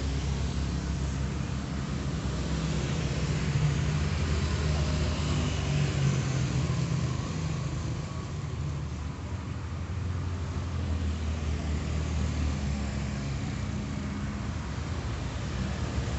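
Steady low rumble of motor vehicle engines, like road traffic running nearby.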